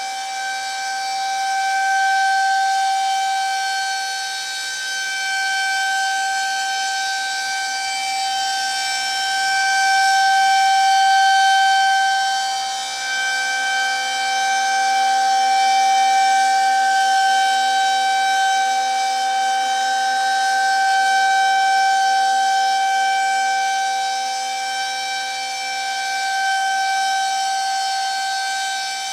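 Federal Signal 2001-130 rotating tornado siren sounding a steady alert: one loud, unchanging pitch. Its loudness swells and fades every several seconds as the rotating horn sweeps past.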